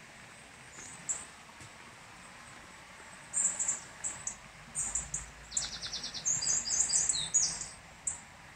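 Songbirds chirping: high, thin calls, scattered at first and coming thick and fast in the second half, with a short rapid trill about halfway through.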